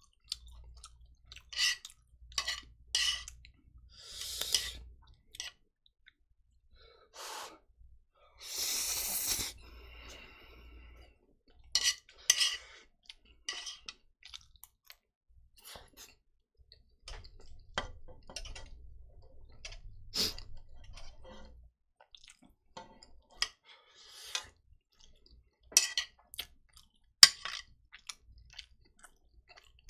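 Eating sounds of instant noodles from a large metal pan: chopsticks clicking and scraping against the pan, with breaths and brief mouth sounds. These come as scattered short clicks and bursts, the sharpest click near the end.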